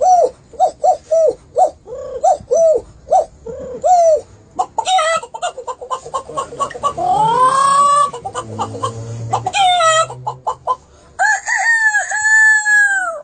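A run of short clucks, then a busier stretch with a rising call in the middle, then long drawn-out crows near the end: chicken and rooster sounds.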